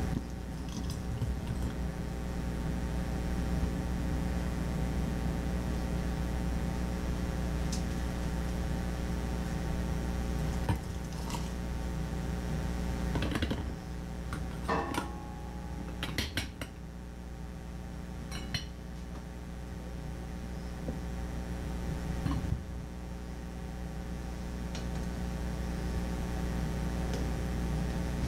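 Pumpkin cubes spooned into a glass mason jar through a stainless steel canning funnel: scattered clinks and knocks of the spoon, funnel and jar, coming thickest in a cluster around the middle, over a steady low hum.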